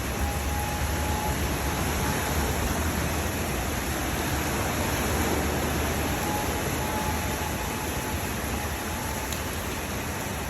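Steady rushing water from heavy rain and flooding, with a faint thin whine in the first second and again for a while in the second half.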